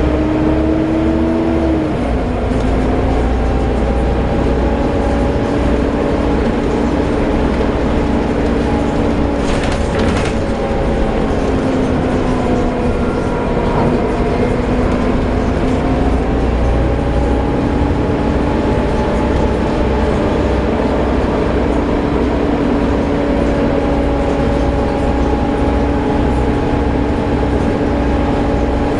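Volvo B7TL double-decker bus's engine and drivetrain running under way, with a steady whine that slowly rises and falls in pitch as the bus speeds up and eases off. This is the vacuum-cleaner-like "hoover" whine the bus is nicknamed for. There is a short rattle about ten seconds in.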